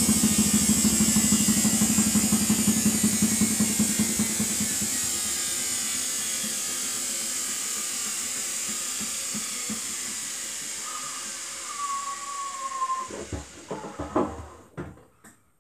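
Samsung front-loading washing machine's drum coasting down from a spin to a stop: a pulsing hum and whoosh that slowly fall in pitch and fade, with a brief whine near the end. This is followed by a few knocks as the drum comes to rest.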